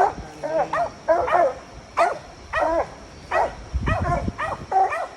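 Coon dog barking at a tree with a raccoon up it: short, sharp barks repeated about twice a second. It is the dog's treeing bark, the dog keyed up.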